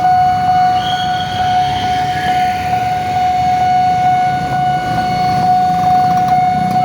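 Railway level-crossing gate warning alarm sounding a steady, loud electronic tone with a faint regular pulse, over the low rumble of traffic.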